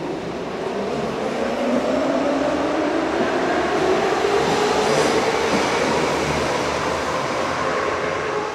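Hamburg U-Bahn DT3 stainless-steel train accelerating away from the platform: its traction motors give a whine that rises in pitch over about five seconds and then levels off, over the rumble of wheels on rails. The sound grows louder toward the middle and eases slightly near the end.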